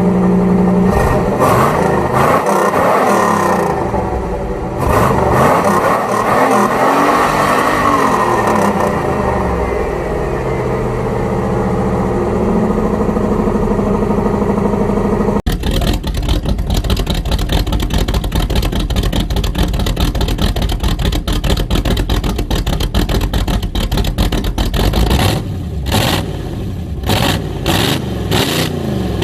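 A 350 small-block Chevy V8 running through headers, revved up and down several times. About halfway through, after a cut, it runs with a fast, choppy pulsing exhaust note, then is blipped a few times near the end.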